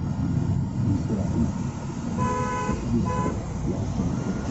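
Vehicle horn honking twice, a half-second toot and then a short one, over the steady road and engine rumble heard from inside a moving car.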